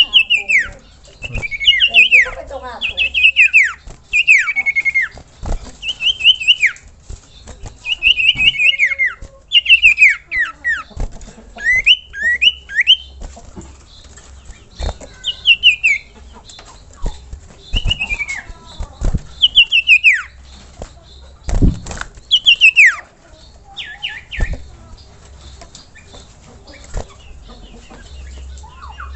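Common iora singing: short phrases of quickly falling whistled notes, repeated about once a second at first and more sparsely in the second half.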